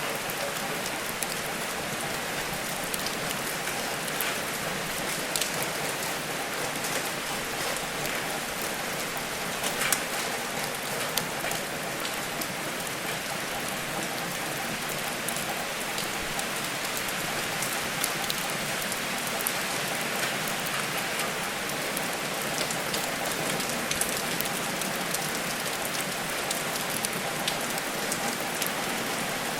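Steady rain falling on a surface, with a wood fire crackling now and then in sharp, scattered pops.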